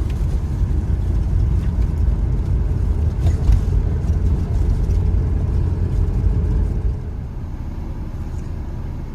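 Renault Megane 2 diesel car driving: steady low engine and road rumble, which eases somewhat about seven seconds in.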